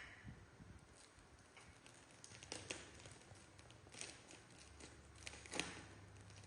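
Faint, irregular light taps and clicks over a low steady hum, with a few louder taps about two and a half, four and five and a half seconds in.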